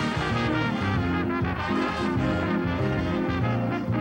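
Church brass band of trumpets, trombones and saxophones playing a tune, with a steady run of held and repeated notes.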